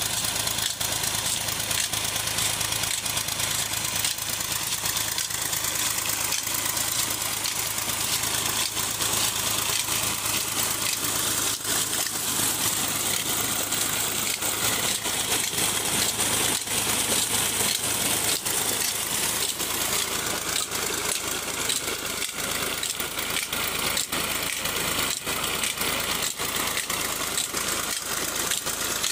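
Fiat 480 tractor's diesel engine running steadily as it drives two tubewell pumps through a long belt and shaft, mixed with the steady rush of water pouring from a 7-inch delivery pipe into a concrete tank. Frequent sharp ticks run through it.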